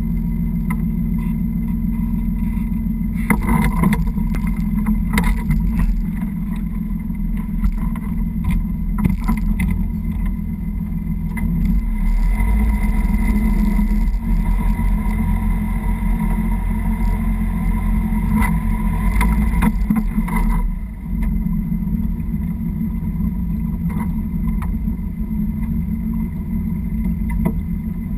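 Sailboat's inboard engine running steadily with a low hum, a little louder for several seconds past the middle while the boat moves off its berth. A few knocks and clatters in the first ten seconds.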